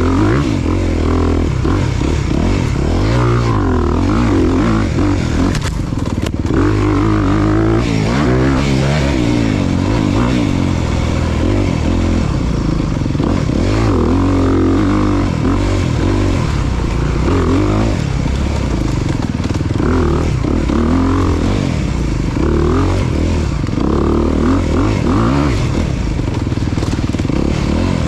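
Off-road dirt bike engine revving hard and easing off again and again, its pitch rising and falling every second or two as the rider works the throttle.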